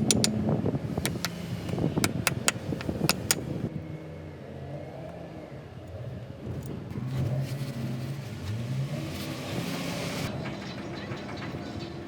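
A quick run of sharp metallic clinks and taps, like tools on metal, for the first few seconds. Then a vehicle engine runs with its pitch shifting, and a burst of hiss comes about nine seconds in.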